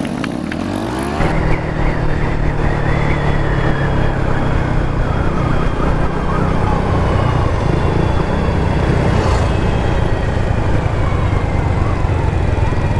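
Suzuki Raider 150 Fi motorcycle's single-cylinder engine under way, rising in pitch as it accelerates in the first second, then running steadily at speed.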